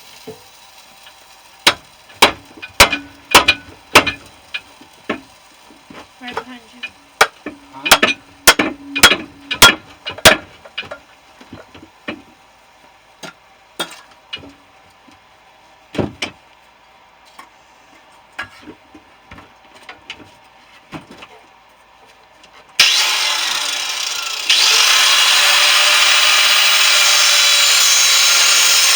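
Irregular sharp strikes on the metal casing of an air-conditioner compressor, about a dozen loud ones in quick succession, then thinning out. About 23 seconds in, a power tool starts abruptly and cuts into the metal with a loud, steady grinding noise that grows louder a moment later.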